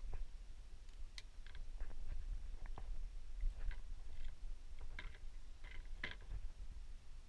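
Scattered light plastic clicks and taps from a small toy quadcopter being handled by hand, about a dozen over several seconds, over a steady low rumble of handling noise.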